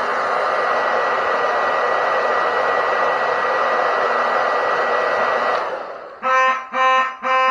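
Handheld hair dryer blowing steadily with a thin high whine, switched off about five and a half seconds in. Then a fire alarm horn sounds in short even pulses, about two a second. These are the first of the walk-test signal's five pulses, which mark the heat detector on zone 5 tripping.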